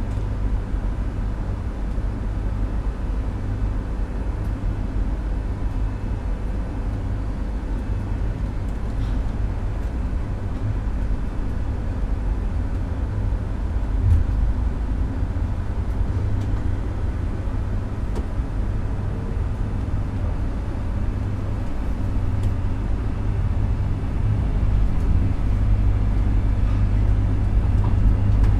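Street traffic ambience: a steady low rumble of passing vehicles, growing louder over the last few seconds.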